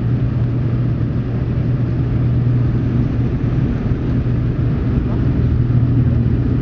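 Fokker 50's twin turboprop engines and propellers at takeoff power, heard inside the cabin during the takeoff roll: a loud, steady drone with a strong low hum.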